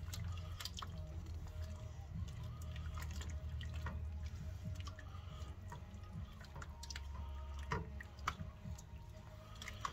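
A spatula stirring thick, creamy yogurt sauce with shrimp in a nonstick pan: irregular wet squelching and slapping, with light taps of the spatula against the pan, over a low steady hum.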